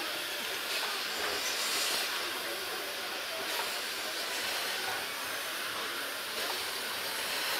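Steam tank locomotive 354.1217 (ČSD class 354.1) standing with steam escaping in a steady hiss.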